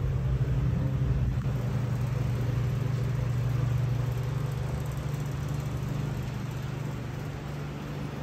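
Steady low machine hum with a few held low tones, growing slightly quieter in the second half.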